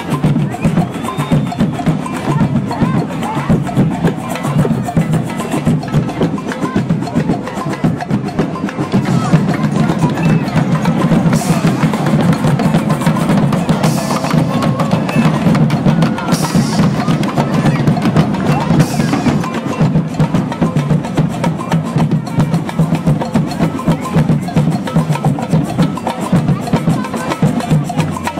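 Percussion music: a fast, steady run of wood-block-like clicks and drum strikes.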